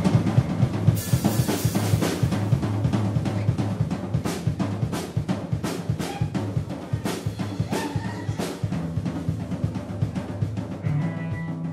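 Drum kit played fast: rapid snare and bass drum strokes mixed with cymbal crashes, slowly getting quieter over the stretch.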